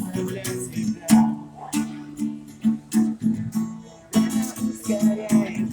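Acoustic guitar strummed in a steady rhythm of chords, about two strokes a second. It eases off briefly about four seconds in, then comes back in.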